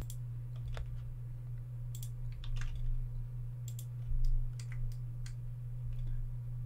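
Computer keyboard keys and mouse buttons clicking, a scattered handful of presses with a few quick runs, over a steady low electrical hum.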